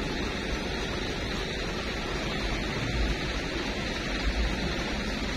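Muddy floodwater flowing steadily across a paved road, heard as an even rushing wash. A few brief low bumps come about three and four seconds in.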